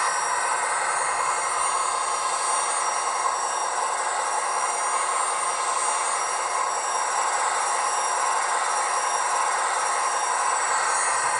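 Simulated gas turbine locomotive sound from a LokSound V4 decoder, played through an HO-scale model's small speaker: a steady hissing rush with a thin high whine, unchanging throughout.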